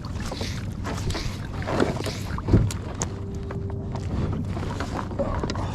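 Boat engine running steadily with wind noise, with a couple of knocks about two seconds in and a brief steady tone for about a second around three seconds in.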